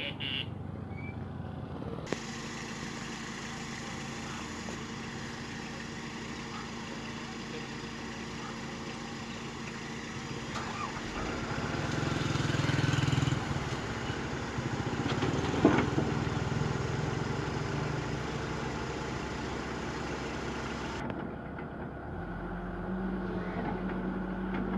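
Komatsu hydraulic excavator's diesel engine running steadily as it works its boom and bucket down from a flatbed truck. The engine rises louder for a couple of seconds about halfway through, and a single sharp knock follows a few seconds later.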